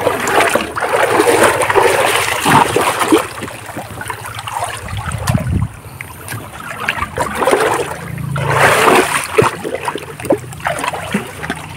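Shallow river water splashing and sloshing in uneven bursts as someone wades and searches through it, with a quieter stretch near the middle.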